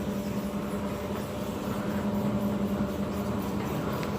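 A steady mechanical hum: one low tone with fainter higher tones above it, over a constant background of noise.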